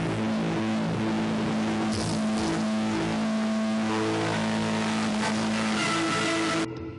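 Loud ramp soundtrack over the hall's PA: a dense, engine-like drone layered with sustained held tones that shift every second or so. It cuts off abruptly just before the end, as the track changes.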